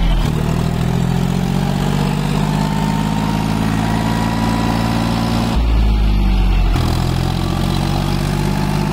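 John Deere 5050D tractor's three-cylinder diesel engine running at a steady pitch as the tractor pivots in loose soil. About six seconds in, the engine note briefly gives way to a heavy low rumble before returning.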